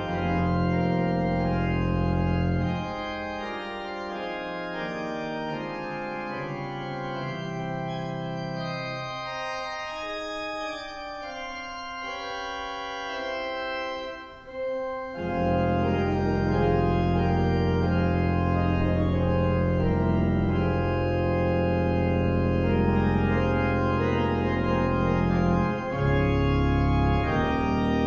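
Organ music playing slow, sustained chords. The deep bass notes drop away a few seconds in, leaving lighter upper voices, and the full organ with its bass comes back about halfway through.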